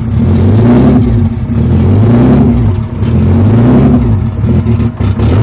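Turbocharged BMW S52 straight-six idling on a cold start under a MegaSquirt standalone ECU, its idle hunting: the engine speed rises and falls every second or two, as it will until the engine warms up.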